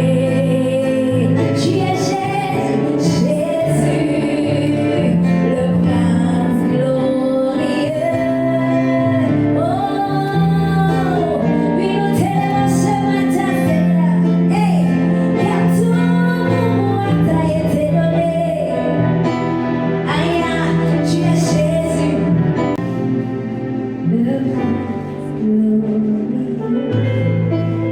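Gospel worship song: a woman singing a slow melody over held, sustained chords.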